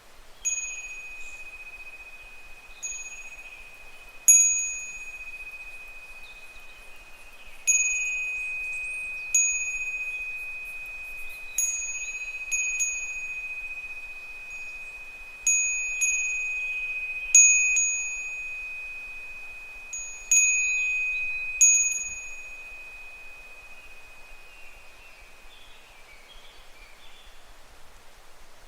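Japanese fūrin wind bell tinkling in the breeze: a single clear bell tone struck by its clapper about a dozen times at irregular intervals, each ring fading slowly, falling still for the last several seconds.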